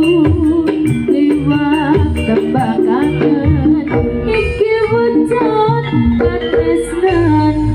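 Live jaranan gamelan ensemble playing a campursari tune: a wavering melody over repeated drum strokes and shimmering metal percussion.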